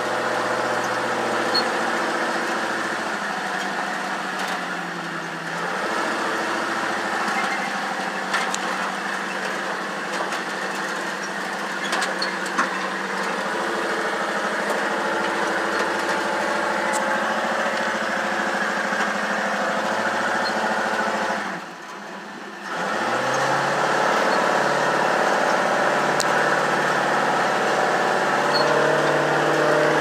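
Truck engine heard from inside the cab while driving on a sandy dirt road, its pitch rising and falling as the revs change, with scattered clicks and rattles. About two-thirds of the way through the engine note drops away for about a second, then picks up again a little louder.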